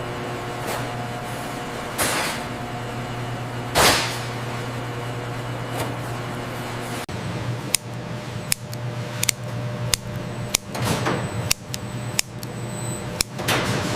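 Food-processing line machinery running with a steady low hum and two whooshes early on; about seven seconds in the sound changes to a run of sharp metallic clanks and clicks over the hum.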